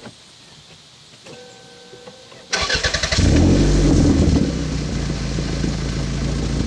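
1991 Toyota Celica GT's four-cylinder engine cranked on the starter and catching about two and a half seconds in, revving briefly, then settling into a steady idle, running with its exhaust leak repaired. A brief steady tone sounds just before the cranking.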